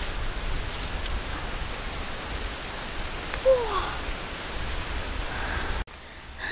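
Steady outdoor hiss with a short falling call about halfway through. The hiss cuts off suddenly near the end.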